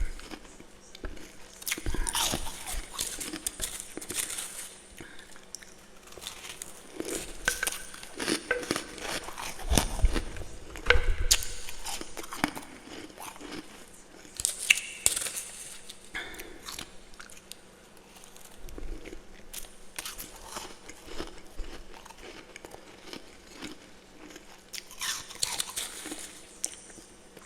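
Close-up biting and crunching of powdery freezer frost from a humidifier-cooled freezer, in irregular bouts of crisp crackling crunches with chewing between them.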